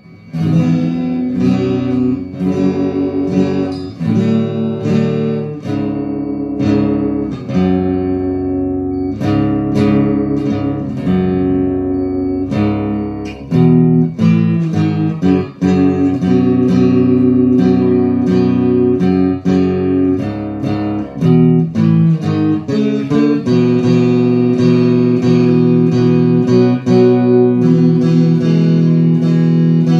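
Custom Cole Clark acoustic-electric guitar being played: a melody of picked single notes and chords that ring on, turning into fuller, held chords near the end.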